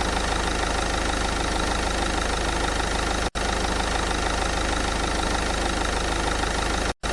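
Vehicle engine idling steadily, a looped recording that cuts out for an instant about three seconds in and again near the end.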